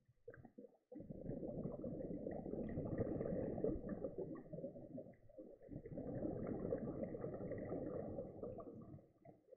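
Muffled underwater rumbling and bubbling of water around a submerged camera. It comes in two long swells with a brief dip about halfway.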